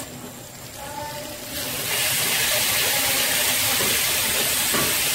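Sliced onions and garlic frying in a hot wok. About a second and a half in, a loud, steady hiss of sizzling and steam starts suddenly, as liquid hits the hot pan.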